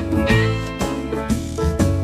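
Instrumental interlude of a children's song: upbeat backing music with plucked guitar and a steady bass and beat, no singing.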